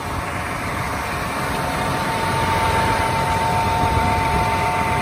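The John Deere 7R330's nine-litre six-cylinder diesel idling steadily. A steady whine comes in just after the start over the low running noise.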